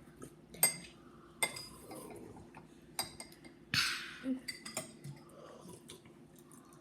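Spoons and cutlery clinking against soup bowls during a meal: a handful of sharp separate clinks spread over several seconds. The loudest comes a little past the middle and is followed by a brief noisy rush.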